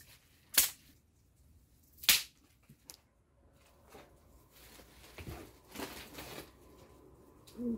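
Two sharp knocks about a second and a half apart, then a metal flour sifter rasping softly as wheat flour is sifted into a plastic mixing bowl.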